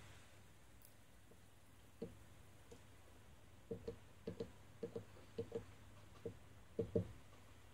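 Soft, dull knocks from handling a plastic syringe. After about two seconds of quiet they come in quick pairs, roughly one pair every half second, and stop about seven seconds in.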